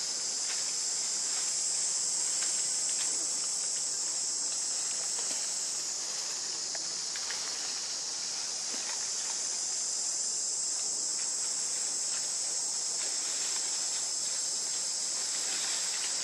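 Steady, high-pitched chorus of insects droning without a break, with faint scattered crackles of leaves and branches as monkeys move through the tree.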